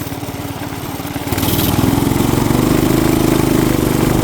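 Small mini-bike engine running, opened up about a second in so it gets louder and holds at higher revs.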